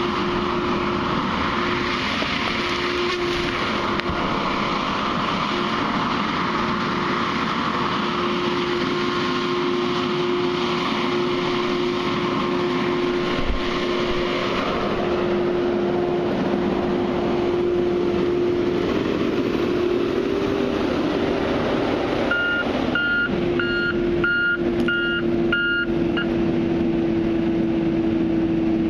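Heavy machine's engine running steadily. From about three quarters of the way in, a reversing alarm beeps about eight times, roughly two beeps a second.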